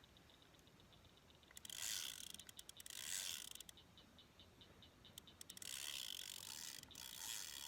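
An old fishing reel being cranked, giving a fast, even clicking of about ten ticks a second; the click comes from the reel's age, not from the drag. Short bursts of rushing noise break in between the stretches of clicking.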